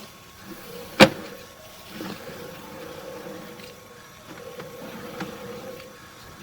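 Sewer scope camera equipment giving a faint steady mechanical hum, with one sharp click about a second in.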